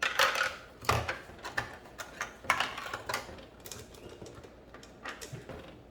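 Small plastic toy pieces and toy coins being handled: a string of irregular clicks and rattles, the loudest about a second in.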